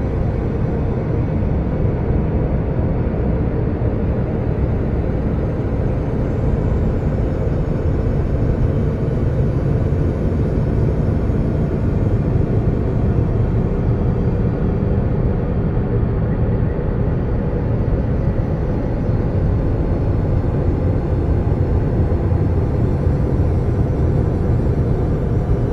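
Steady, dense low rumbling drone of ambient space-style sound design, with faint steady tones over it and no change throughout.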